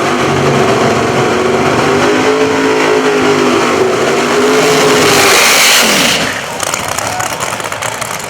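Drag racing car engines at full throttle, a loud steady pitched howl that climbs a little and holds, loudest around five to six seconds in and then dropping off.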